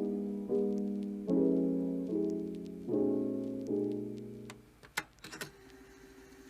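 Background piano music: soft chords struck one after another, each fading away. The music thins out about two-thirds of the way in, leaving a faint held note and a few sharp clicks.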